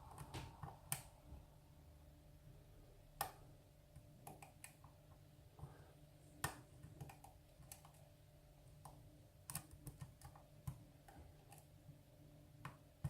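Faint, irregular sharp clicks and ticks of a hook pick working the pins inside a lock cylinder, held under tension by a rigid hex-key tension wrench, over a faint steady hum.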